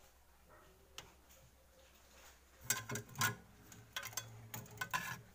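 Hand mixing chicken pieces into a thick curd-and-spice marinade on a ceramic plate. It is quiet at first, then from about two and a half seconds in comes a run of sharp clicks and taps against the plate.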